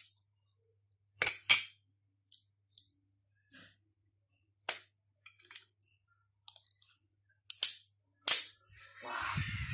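Hard shell of a steamed mud crab's claw cracking under kitchen shears: about a dozen sharp, irregular snaps, the loudest near the end. Shell and handling rustle in the last second.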